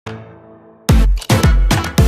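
Electronic dance background music: a held chord fading away, then heavy booming kick drums with a falling pitch coming in about a second in, a little over two beats a second.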